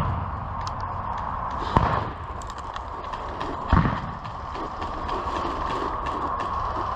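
Two sharp thumps about two seconds apart, over a steady outdoor hiss.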